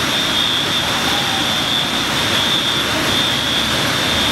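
Fire engine diesel engines running as the apparatus moves off, a steady heavy rumble with a steady high tone over it.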